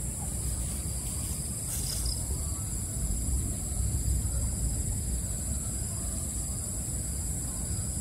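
Crickets chirring in a steady, continuous high-pitched chorus, over a steady low rumble.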